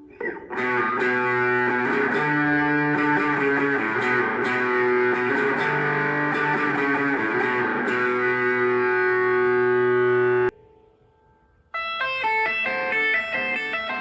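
Electric guitar played through a Zoom G1X Four multi-effects pedal, switching between preset patches. A dense, sustained sound cuts off abruptly about ten and a half seconds in. After about a second of near silence, a brighter pattern of separate picked notes begins on the next patch.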